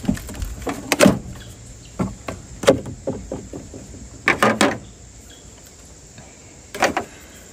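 Plastic air cleaner housing being tilted back and pulled off the throttle body of a 4.3 V6: a scattered run of knocks and scrapes over the first five seconds, and one more knock near the end.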